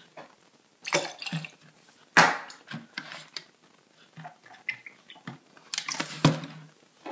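Passion fruit juice poured from a carton into a small steel jigger and tipped into a stainless steel cocktail shaker, splashing and dripping in short bursts about a second in, just after two seconds, and around six seconds.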